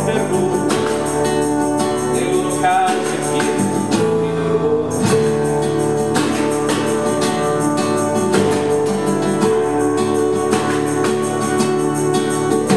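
Live folk band playing: guitar strumming with trumpet, keyboard and violin over a steady percussion beat, with a voice singing.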